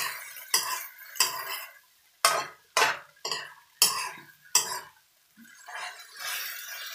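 Metal utensil knocking and scraping against a wok while stir-fried spaghetti is tossed: a run of sharp clinks and scrapes, roughly one every half second to second, easing into a softer stirring rustle for the last couple of seconds.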